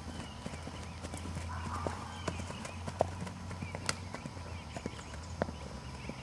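A ridden horse's hooves striking grass turf: a run of irregular dull thuds and clicks as it moves around the paddock, over a steady low hum.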